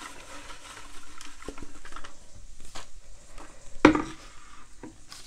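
Hand stirring and rummaging through small message pieces inside a water pitcher: light rattling and scattered clicks, with a sharper knock about four seconds in.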